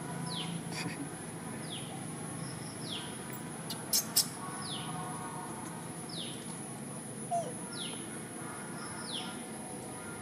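A bird repeating a short falling whistle seven times, about every second and a half, over a steady high-pitched hiss. Two sharp clicks about four seconds in.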